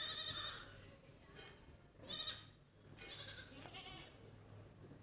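High-pitched, quavering animal cries: three short calls, the first right at the start, the others about two and three seconds in.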